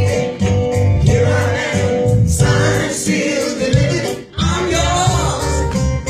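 Soul music: a singer's voice over bass and guitar accompaniment, dropping out briefly about four seconds in.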